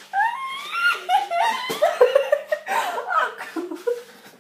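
Girls laughing hard, with high-pitched, gliding bursts of laughter.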